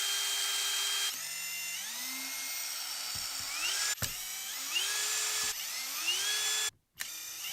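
Cordless drill-driver running in several short bursts, each a rising whine that settles to a steady pitch, backing screws out of a reciprocating saw's plastic housing.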